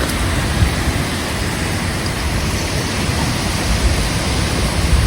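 Steady rush of heavy rain, with wind buffeting the microphone in irregular low rumbles.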